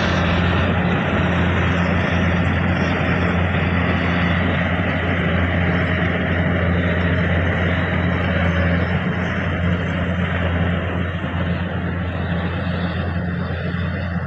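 Kubota DC104 combine harvester running steadily at working speed, a constant low engine hum under the rushing noise of the machine; it gets a little quieter near the end.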